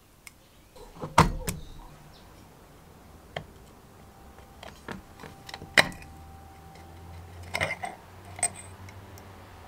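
Metal parts of a hand drill's gear housing being handled and taken apart: sharp metallic clicks and knocks as the steel bevel gears and shaft shift and strike against the cast housing. The loudest knocks come about a second in and just before six seconds.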